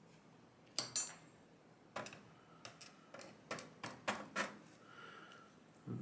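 Light, irregular metallic clicks and taps of tweezers working at a pin-tumbler lock's housing and its small pins during disassembly.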